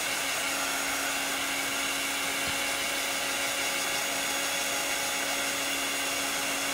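Handheld craft heat tool blowing steadily over a chalk-paste board, with a steady motor hum under the rush of air, drying the freshly applied chalk paste.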